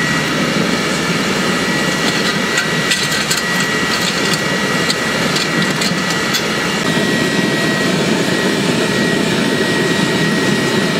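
Homemade waste-oil drip burner firing in a steel-barrel forge, turned down low, running with a steady rushing noise and a thin whine through it. A few light metallic clicks in the first half come as the steel crucible is set back in.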